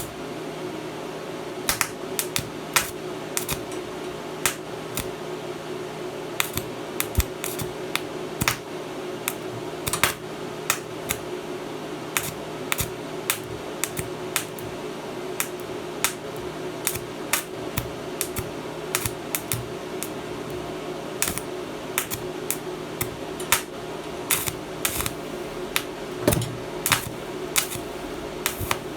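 Welding arc from an inverter DC welding machine set to 31 amps, crackling continuously with frequent sharp irregular pops over a steady hum.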